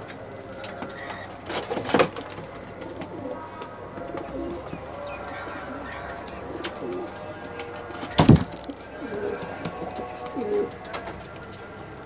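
Pigeons cooing, with low rolling coos every second or two. A sharp knock comes about eight seconds in, the loudest sound, and a lighter one comes about two seconds in.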